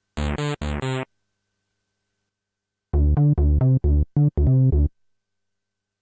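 Steinberg Prologue software synthesizer playing a bass preset. Three short notes come first, then after about two seconds of silence a quick run of about seven short notes, heavy in the low end.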